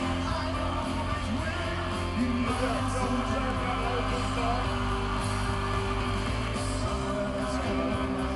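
Live rock music from a televised halftime show played back over room speakers: a band with electric guitars, bass and drums behind a male lead singer, with backing singers.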